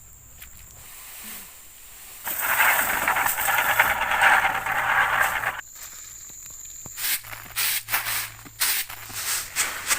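Pedal-driven rice thresher at work: a loud rushing hiss over a low hum for about three seconds as stalks are held against the spinning drum, then a run of short rustling crackles.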